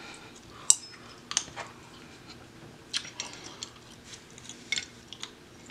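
Scattered light metallic clicks and clacks, about eight spread irregularly, as a pistol slide and a bench sight-pusher tool are picked up, shifted and set down.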